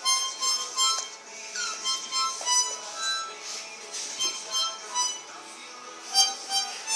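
Harmonica playing a tune in short, separate notes, the loudest of them about six seconds in.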